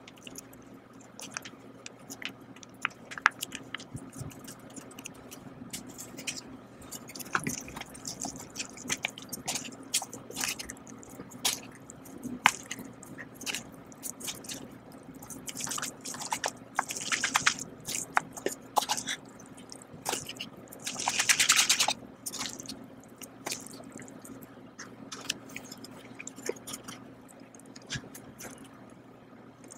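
Wet instant bowl noodles being handled: a sauce sachet squeezed into a paper cup, then chopsticks stirring and lifting the noodles with many small clicks, scrapes and drips. Two louder wet hissing swishes of about a second each come around the middle and about two-thirds of the way through.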